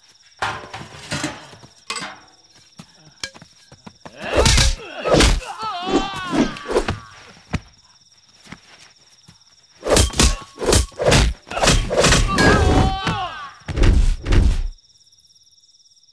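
Action-film fight sound effects: heavy punch and blow thuds and whacks, mixed with men's grunts and cries. They come in two flurries, a short one about four seconds in and a longer one from about ten seconds in until shortly before the end.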